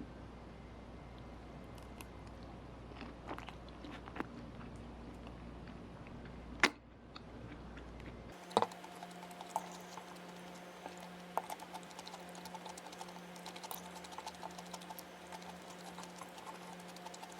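Scattered small clicks and taps over a low room hum, with one sharp click about seven seconds in; the background changes abruptly a little after eight seconds, and the taps then come thicker and faster.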